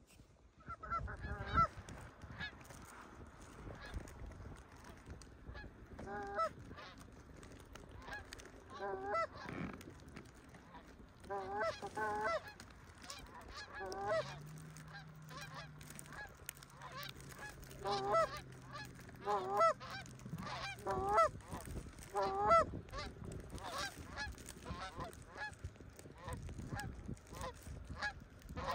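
Goose honks in short clusters of two to four rising calls, repeated every few seconds.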